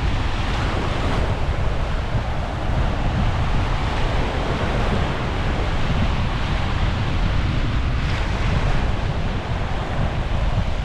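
Sea waves washing on the shore, with wind buffeting the microphone in a steady low rumble.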